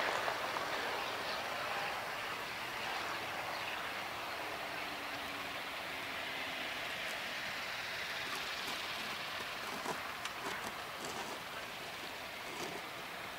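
Hawker Hurricane's Rolls-Royce Merlin engine throttled back as the fighter lands and rolls out on grass, heard at a distance as a steady, even hiss and rumble.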